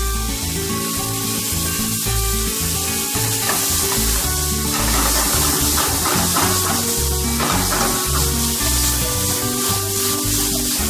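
Pineapple and melon pieces sizzling in a hot frying pan as white wine poured over them burns off in a flambé; the sizzling swells for a few seconds midway. Background music plays underneath.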